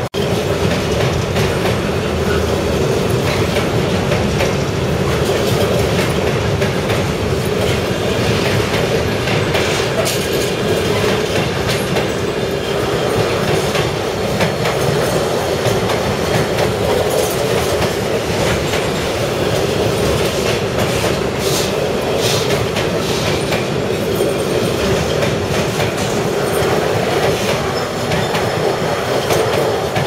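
Container wagons of a long intermodal freight train rolling steadily past, a continuous rumble with wheels clicking over the rail joints.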